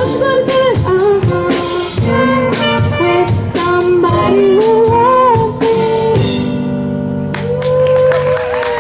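Live amplified band playing with drums and a young female lead singer, the song ending on a long held final chord that stops near the end.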